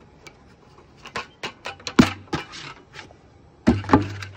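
Cut red 5-gallon plastic bucket being flexed and twisted by hand, giving a run of sharp plastic clacks and snaps, the loudest about two seconds in and near the end.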